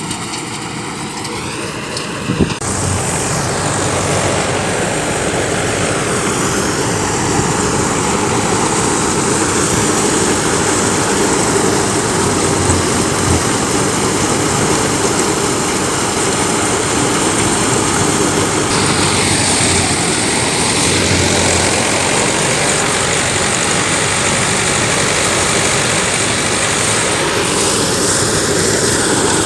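Engine of a wheat-harvesting machine running steadily. About two and a half seconds in, the sound becomes louder and denser and then holds even.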